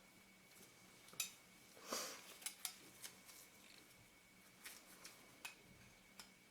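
Faint, scattered small metallic clicks and a brief scrape about two seconds in: a small flathead screwdriver working a tiny locking screw out of the retaining ring of a Leica Summicron-M 35mm lens. Faint steady hum underneath.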